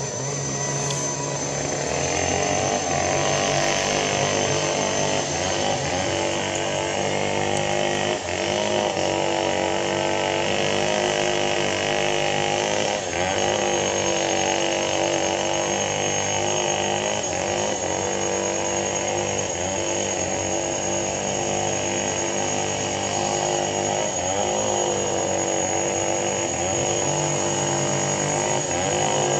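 A motor engine running steadily, with a thin high whine above its drone.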